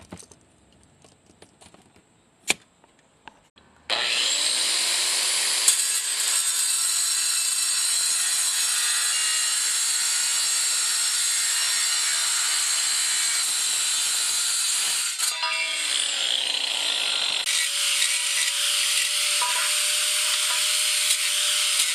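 Power tool cutting steel: the motor spins up with a rising whine about four seconds in, then runs through a long, loud, steady cut for some eighteen seconds, its tone changing about two-thirds of the way through.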